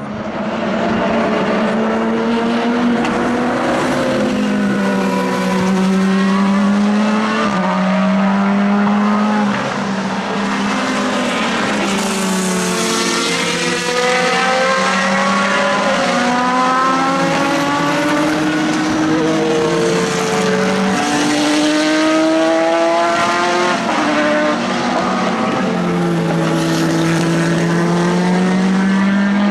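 Several race car engines running hard at once, their pitch climbing and dropping through the gears as they pass, one after another with no gap.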